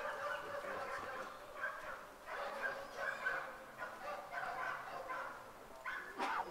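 German shepherd dog whining and yelping in a near-continuous string of high-pitched cries with short breaks, with a sharper, louder yelp about six seconds in.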